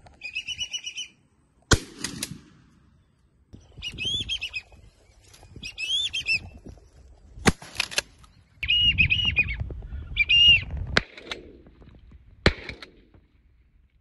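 Pump-action shotgun shots, sharp single cracks a few seconds apart, three of them loud, between bursts of repeated high chirping bird calls.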